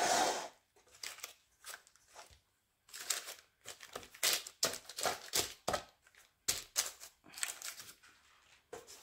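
Baking paper lining a round cake pan crinkling and rustling in many short bursts as hands press and tuck it around a ring of dough.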